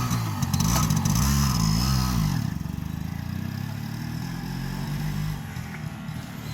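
Enfield Fury's two-stroke single-cylinder engine revved up and down a few times, then settling to a steady idle about two and a half seconds in.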